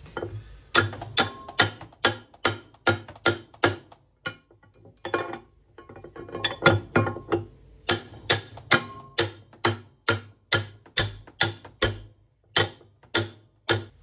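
Ratchet wrench clicking in short strokes on the nut that holds the drive plate on an LG top-load washer's drive shaft. The clicks come about two or three a second, with a brief pause about four seconds in, and some strokes ring briefly.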